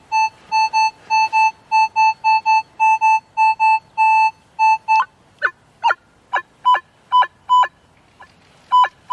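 Minelab CTX 3030 metal detector sounding a target signal over buried metal: a quick run of short beeps at one steady pitch, about four a second. About five seconds in they change to separate, shorter chirping beeps that each drop sharply in pitch.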